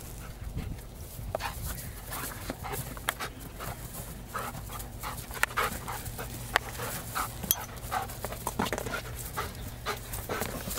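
German Shepherd panting in quick, even breaths, with a couple of sharp clicks in the middle.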